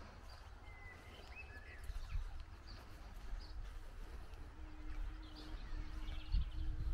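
Outdoor rural ambience: small birds chirping and calling over a low rumble of wind on the microphone. A faint steady hum comes in about halfway through, and there are a couple of dull thumps.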